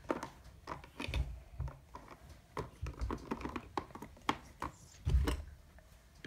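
Small plastic toys being handled and set down on a cardboard toy box: scattered light clicks and taps, with a heavier knock about five seconds in.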